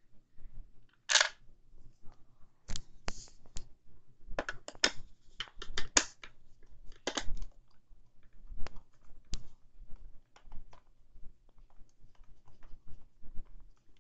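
Clicks, taps and short scrapes of hard plastic vacuum housing parts being handled while a screw is fitted and driven in by hand. The clicks are irregular, with a longer scrape about a second in and quieter small ticks in the second half.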